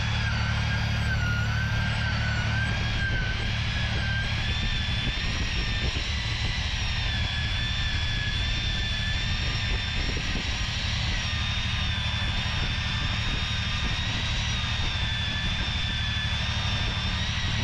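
Pipe-facing (milling) tool of a plastic-pipe butt-fusion welder running steadily: a low motor hum with a high whine that wavers slightly in pitch.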